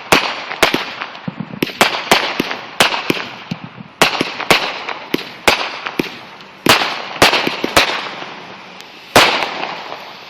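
Fireworks going off in a rapid, irregular run of sharp bangs, about two a second, over a continuous crackling hiss; the hiss dies down near the end and one last loud bang follows.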